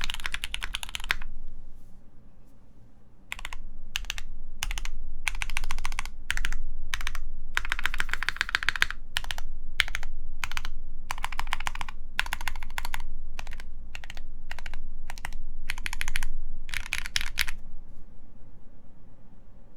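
Typing on a mechanical keyboard with lubed Gateron Mizu Minks switches, GMK keycaps and an aluminium plate: runs of rapid keystrokes with short pauses between words, a pause of about two seconds near the start, and the typing stopping about two seconds before the end.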